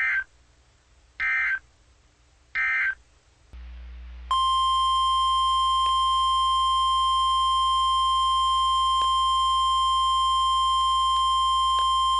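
Three short bursts of Emergency Alert System SAME data tones, the end-of-message code, then after a low hum a single steady 1050 Hz NOAA Weather Radio alert tone that sounds for about nine seconds, starting about four seconds in.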